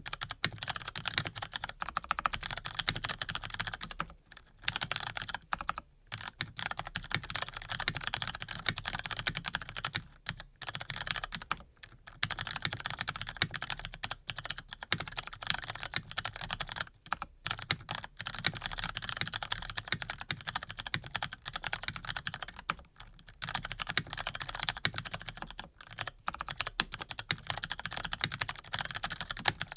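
Continuous typing on a Razer BlackWidow V3 Pro mechanical keyboard with lubed Cherry MX RGB Brown tactile switches: fast, dense key clicks, broken by short pauses every few seconds.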